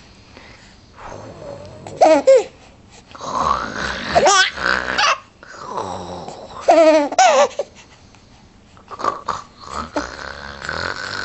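A young child laughing and making mock snoring noises, imitating a snore. The high, wavering vocal bursts come loudest about two, four and seven seconds in.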